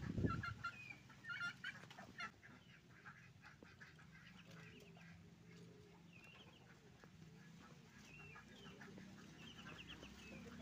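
Muscovy ducklings peeping in short high chirps, many at once, faint throughout. Softer, lower calls repeat about once a second in the second half, and a brief low bump sounds right at the start.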